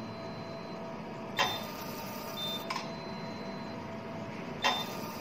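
Fractional laser firing on the skin, scan after scan: a sharp click about one and a half seconds in and again near the end, with a softer click and a short high beep from the machine between them, over a steady faint machine tone.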